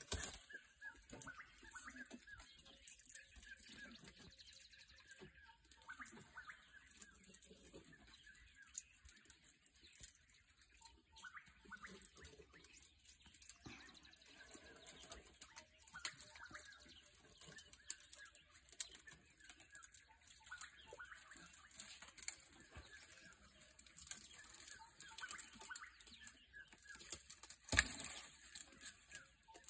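Birds chirping over quiet bush ambience, with scattered twig snaps and rustling from an African elephant browsing on bushes; the sharpest snap comes near the end.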